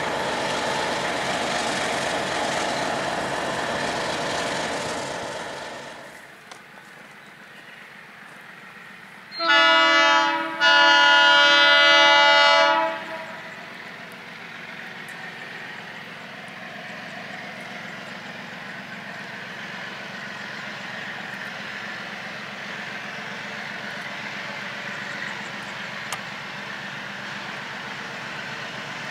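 MLW diesel locomotive's air horn sounding a short blast and then a longer one of about two and a half seconds, a loud chord of several tones. A rushing noise fades out before the horn, and a steady low engine rumble follows.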